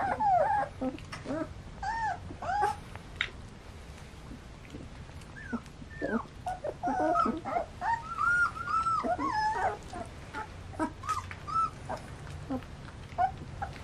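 A litter of 15-day-old German Shepherd puppies whimpering: many short, high cries that rise and fall, often several at once, busiest in the middle.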